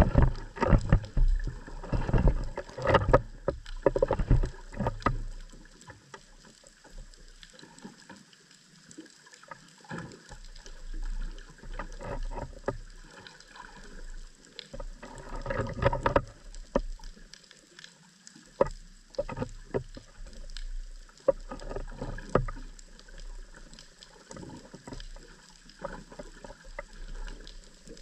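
Underwater ambience picked up through a camera housing on the sea floor: irregular bursts of clicking, knocking and low rumbling that come and go in surges, loudest in the first few seconds and again about halfway through, over a faint steady hiss.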